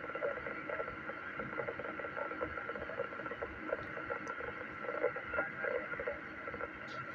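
Weak two-way radio voice transmission from a mobile station, received through a repeater. The voice is low and garbled, buried in steady hiss, too quiet to make out.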